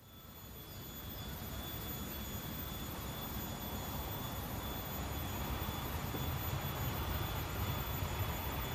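Diesel-electric locomotive hauling a passenger train, approaching while still far off: a low engine rumble that grows louder over the first couple of seconds and then holds steady, with a faint steady high whine over it.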